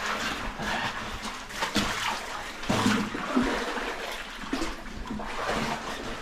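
Water in a cave stream splashing and sloshing, with a few louder irregular splashes about two to three and a half seconds in.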